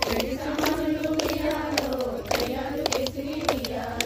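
A group of women singing a Telugu Bathukamma folk song together in long, held notes, with hand claps keeping a regular rhythm.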